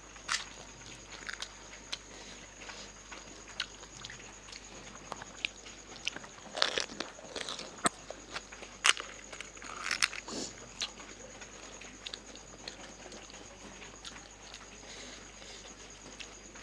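Crisp fuchka (pani puri) shells crunching as they are bitten and chewed: irregular crunches and clicks, with a busier cluster of louder crunches around the middle.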